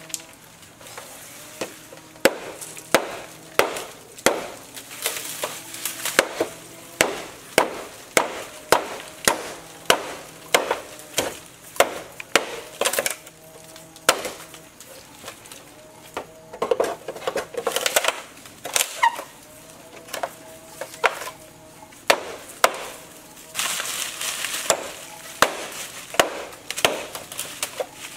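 Machete chopping into bamboo stalks: a long, even run of sharp strikes, about three every two seconds, with a few short stretches of rustling between them.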